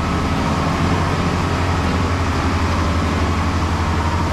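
Boat's engines running steadily under way, with the rush of water from its wake.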